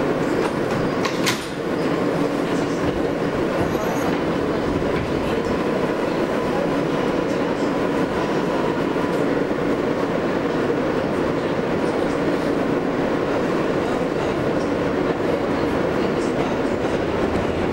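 Kawasaki R143 subway car: its doors shut with a sharp knock about a second in, then the train runs with a steady rumble of wheels on rail, a faint hum and some clickety-clack.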